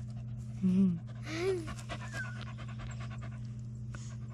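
Dog panting close by, with two short rising-and-falling cries about a second in, over a steady low hum.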